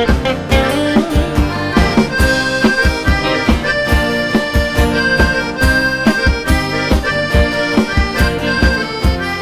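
Band playing an instrumental solo: an accordion-sounding lead melody over a steady drum beat and bass.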